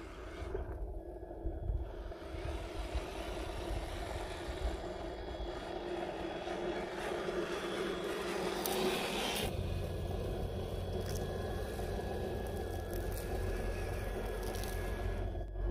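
Scale RC rock crawler's brushed 540 electric motor and gearbox whining steadily as it creeps over dirt, with tyres scraping the ground. About halfway through a low wind rumble on the microphone takes over the bottom end.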